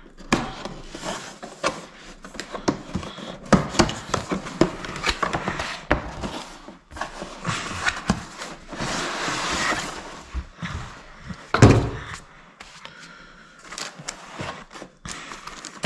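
A cardboard box being opened and unpacked on a table: the inner box scraping out of its sleeve, packaging rustling, and a run of small knocks, with one louder thump about three quarters of the way through.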